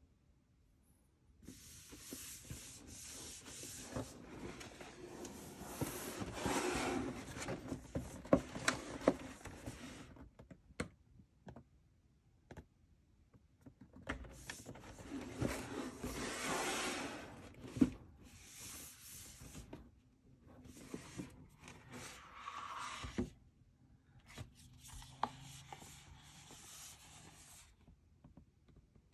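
A cardboard Nike shoebox being slid out of its cardboard sleeve and handled, in several long stretches of rubbing and scraping with a few sharp taps. Near the end the lid is lifted open.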